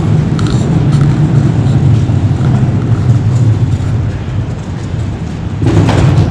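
Steady, loud low rumble, with a short rustling noise near the end.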